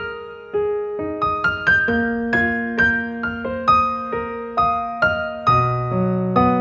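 Background music played on piano, notes and chords struck about twice a second, each ringing and fading.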